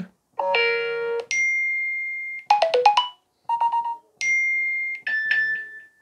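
iPhone 13 alert tones previewed one after another from the phone's speaker as each is tapped in the tone list. About six short electronic chimes and little melodies play, some a single held high note and some a quick run of notes, each cut off when the next one starts.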